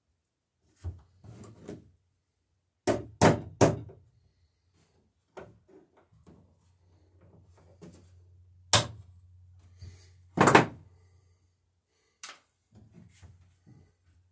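Hammer blows on a wooden boat's planking while riveting the lapped planks: a quick run of three sharp strikes about three seconds in, then single strikes, the hardest about ten seconds in, with lighter taps between. A faint low hum sits under the middle stretch.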